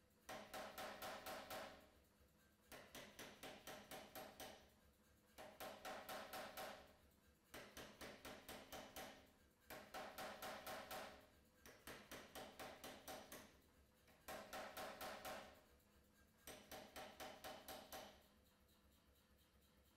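Anyang pneumatic power hammer striking a glowing steel billet in short bursts of several quick blows each, about eight bursts with brief pauses between them, as the bar is forged.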